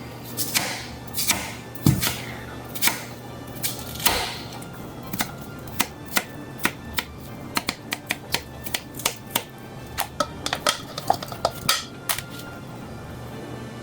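Knife chopping on a cutting board: a string of sharp, irregular knocks, sparse at first, then coming about two or three a second from about five seconds in.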